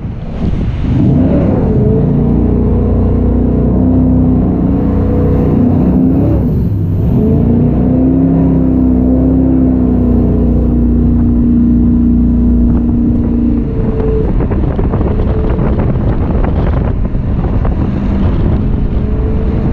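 Jet boat's gas-fuelled 420 hp Chevrolet engine running hard under way. Its note dips and picks up again about six to seven seconds in, and eases to a lower pitch a little past the middle.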